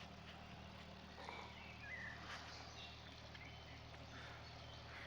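Quiet outdoor ambience: a faint, steady low hum with a few faint chirps, one about two seconds in.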